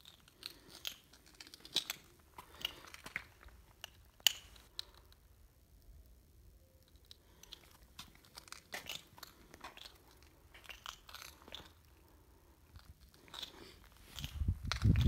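Scattered small clicks and crunches at irregular intervals, the handling and movement noise of someone filming on foot. A low rumble comes in near the end.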